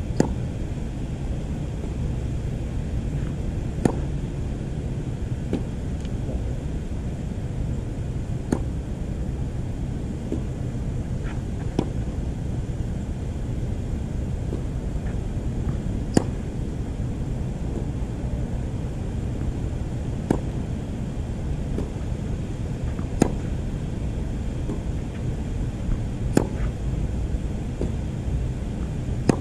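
Tennis racket strikes: sharp pops of the strings hitting the ball every few seconds, about seven loud ones with fainter ticks between. Under them runs a steady low rumble.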